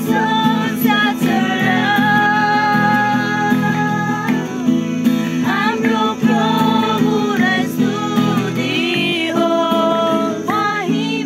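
A woman singing to her own acoustic guitar, strummed chords under long held, wavering sung notes.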